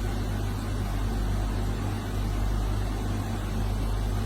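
Steady low mechanical hum over a constant noisy background, with no changes or distinct events.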